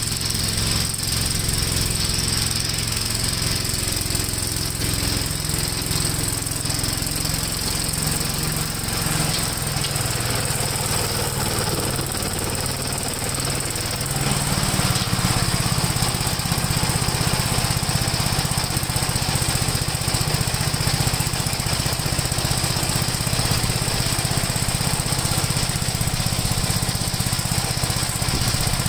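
Gravely walk-behind tractor's single-cylinder engine running steadily under load while its rotary mower deck cuts grass, louder from about halfway through as it comes closer. It runs the best it ever has, after a carburetor needle-and-seat fix for flooding.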